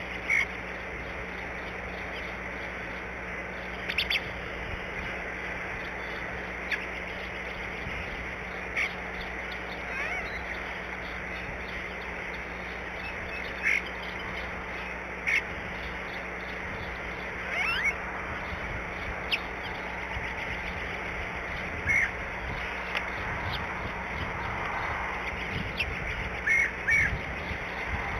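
Short bird calls every few seconds, with a quick pair near the end, over a steady outdoor hiss.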